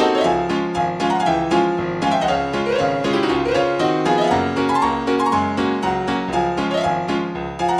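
Piano music: a quick run of melody notes over a steady bass line.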